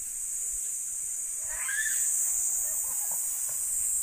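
Insects droning in the trees, a steady high-pitched hiss, with a short bird call about one and a half seconds in.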